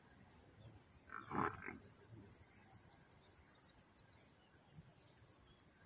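A brief buffalo grunt about a second in, then a bird chirping in a quick run of short rising notes, about four a second, over a quiet farmyard background.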